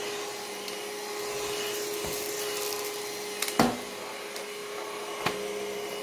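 Moolan cordless stick vacuum running steadily with an even motor tone as its floor head is pushed over carpet. Two sharp knocks cut through it, the louder a little past halfway, the other near the end.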